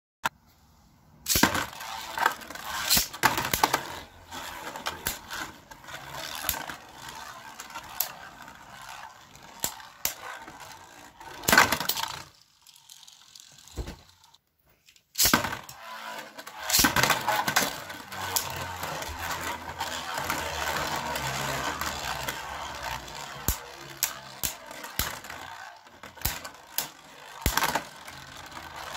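Beyblade Burst tops (Fafnir and Longinus) spinning in a plastic stadium, a scraping whir broken by many sharp clacks as they strike each other and the stadium walls. The sound stops briefly about halfway through, then resumes with a steadier scraping.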